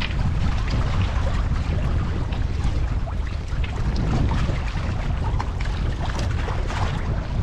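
Wind buffeting the microphone as a continuous uneven low rumble, with faint scattered light ticks above it.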